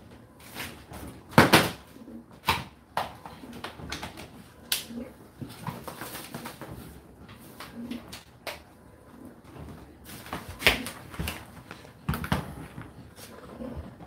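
Whirlpool WFO3P33DLXUK dishwasher in its first rinse: water thrown from the spray arms splashes against the inside of the door and the load, heard as irregular swishes and knocks. The loudest comes about a second and a half in.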